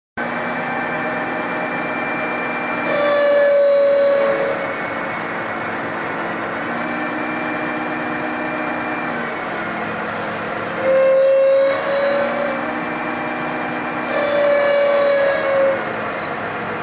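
Centre lathe running with a steady hum while the cutting tool bites into a hardened steel sprocket, screeching loudly three times for a second or two each, with a strong steady squeal in each cut.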